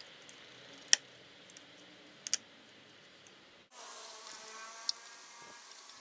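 Sharp plastic-and-metal clicks as a laptop-style SO-DIMM memory module is pressed down and snapped into its slot in an early-2009 Mac mini: one loud click about a second in and a quick double click just over a second later. After a cut a little past halfway there is a faint steady buzz with a few light clicks of parts being handled.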